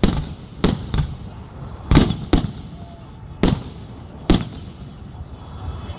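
Aerial firework shells bursting in the sky: a quick string of about seven sharp bangs over four and a half seconds, loudest near the two-second mark, then a quieter lull near the end.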